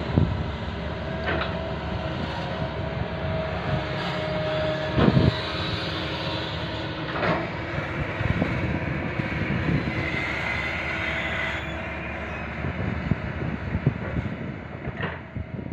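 Excavator diesel engine running under load, with a steady rumble, a few sharp metallic knocks and short high squeals or whines.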